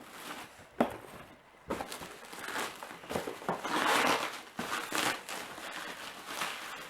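Plastic shrink wrap being torn and crumpled off a boxed pair of headphones: irregular crinkling with a few sharp snaps, loudest about four seconds in.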